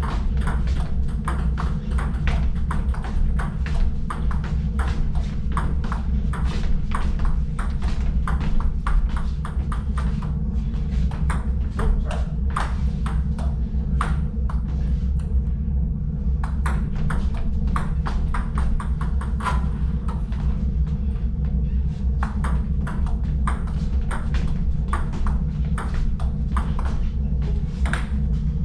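Table tennis ball clicking back and forth between the paddles and the table in continuous rallies, a quick run of sharp clicks with short breaks between points. A steady low hum runs underneath.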